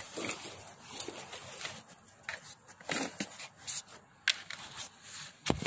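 Cloth rustling with scattered light clicks and knocks of handling close to the microphone; no engine running.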